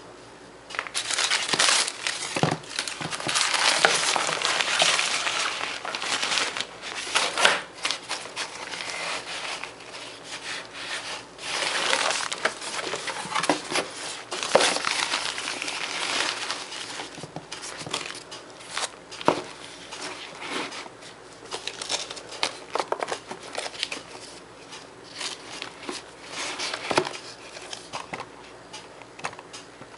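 Packaging being crumpled and handled during the unboxing of football boots: crinkling with scattered sharp clicks, heaviest in two stretches in the first half and lighter afterwards.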